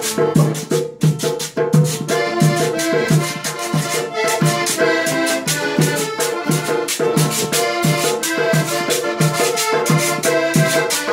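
Live cumbia played by a small band: a diatonic button accordion carries the melody over strummed acoustic guitar, a hand drum and hand percussion keeping a steady beat.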